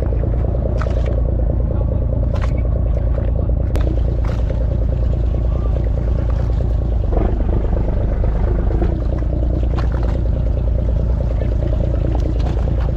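Fishing boat's engine running steadily at low revs, a constant low drone, with a few light clicks and knocks over it.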